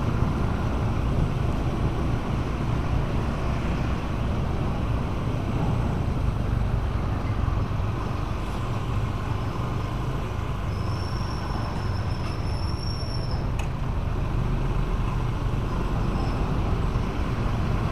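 Steady traffic noise heard from a moving motorcycle: engine and road rumble of the rider's bike, scooters and a truck in slow city traffic. A faint thin high squeal sounds for about two seconds past the middle, ending in a small click.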